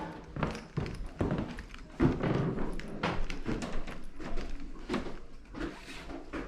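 Irregular knocks and thuds, several a second, with a heavier thud at the start and another about two seconds in.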